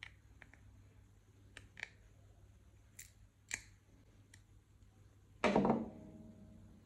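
A metal pry tool working at the glued seam of a small device case, giving a run of sharp clicks and ticks. About five and a half seconds in comes one louder knock with a brief ringing tail.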